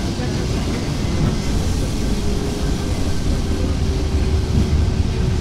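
Vintage electric tram running along street rails, heard from aboard: a steady low rumble of the car and wheels on the track, with a faint steady whine through the middle.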